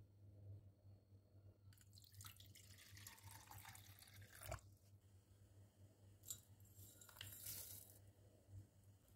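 Faint water being poured in a kitchen, ending in a light knock about four and a half seconds in, over a steady low electrical hum.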